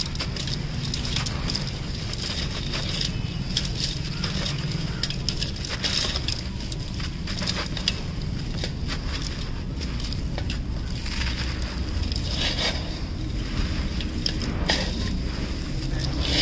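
Dry, gritty sand-cement crushed and crumbled by hand in a steel pot: continuous crunching and crackling as the lumps break, with grit and sand falling back into the pot.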